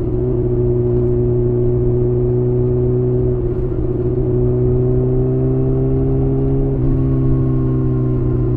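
Kawasaki ZX-6R's inline-four through a Leo Vince aftermarket exhaust, running under way at steady revs. Its pitch rises slowly, and the note breaks briefly twice, about three and a half and seven seconds in.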